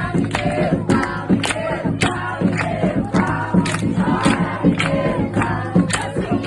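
A group of voices singing together over a steady percussive beat of about two strokes a second.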